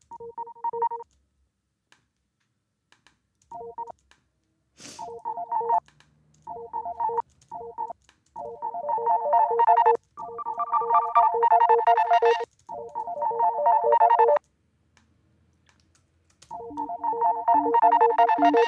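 A pitched sample played back through a sampler instrument from MIDI notes, several notes and layers at different pitches, coming in stop-start phrases with a fast pulsing inside them and silent gaps between. Each pitch plays through the sample from a different point.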